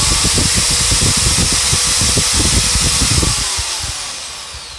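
Total TG105136 corded impact drill with an empty chuck running free at speed with no load, quite smooth. About three seconds in the trigger is released and the motor winds down with a falling whine.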